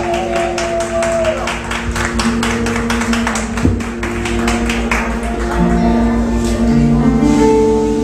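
Live band music: held keyboard chords over a steady bass pulse, with a fast, even beat of sharp taps that stops about five seconds in.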